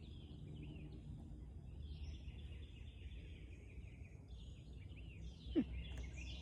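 Birds chirping in the background over a low, steady outdoor rumble, with one short, loud sound sliding down in pitch about five and a half seconds in.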